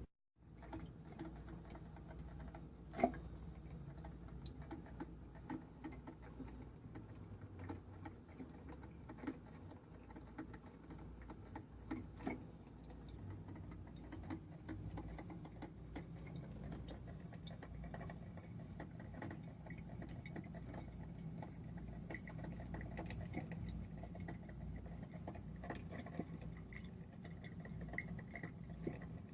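Coffee machine heard faintly: scattered clicks and ticks, the sharpest about 3 and 12 seconds in, with a low steady hum that grows about halfway through as it runs.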